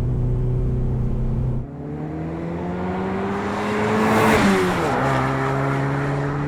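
2015-2017 Ford Mustang EcoBoost's turbocharged 2.3-litre four-cylinder through a Ford Racing by Borla Touring exhaust. It runs steadily, then after a cut about a second and a half in, the car drives past: the exhaust note climbs and grows louder to a peak, then drops sharply in pitch as it goes by.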